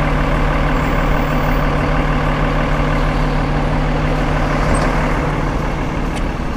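A large road vehicle's engine running steadily, with a constant low hum over broad street noise.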